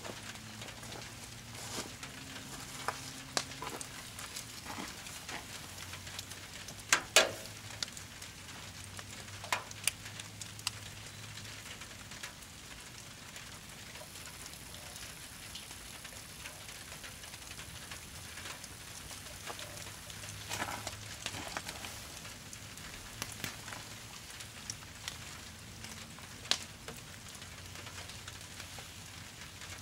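Brush-pile fire crackling, with scattered sharp pops over a steady hiss. The loudest pops are a close pair about seven seconds in.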